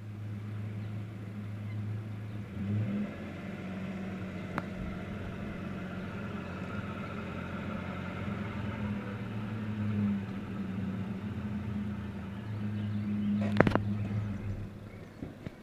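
Vehicle engine running steadily at idle, its low hum shifting pitch slightly a couple of times, with a sharp click about four and a half seconds in and a louder knock near the end.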